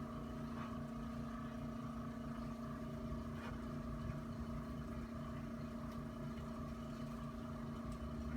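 Steady mechanical hum with a regular low pulsing, and a couple of faint clicks.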